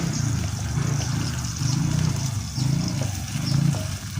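Spice paste sizzling as it sautés in a hot pan, a steady hiss over a low, wavering rumble.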